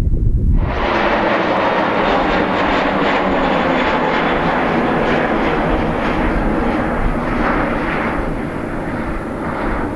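Jet engine noise of a Boeing 777-300ER's GE90-115B engines on final approach, steady and easing slightly near the end. Wind on the microphone comes first, before the jet noise starts abruptly about half a second in.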